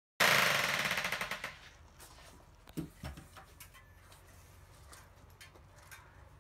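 A corded electric hammer tool rattling through a rapid string of blows, loud at the start and dying away over about a second and a half. Two dull knocks follow about three seconds in.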